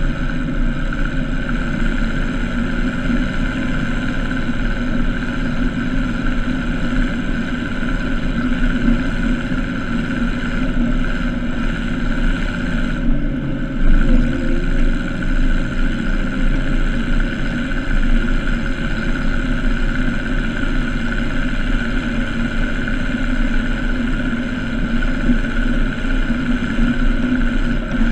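MB trac 1000 tractor's diesel engine running steadily under load, powering the JF 9500 manure spreader it tows through the PTO while the spreader throws out manure.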